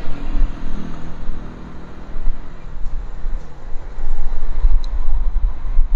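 City traffic at a roundabout: a motor scooter's engine passes close in the first two seconds, with cars moving, over a heavy, uneven low rumble.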